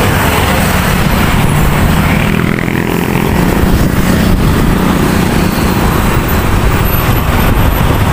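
Road traffic passing close by: a bus and a box truck driving past, their engines giving a loud steady rumble.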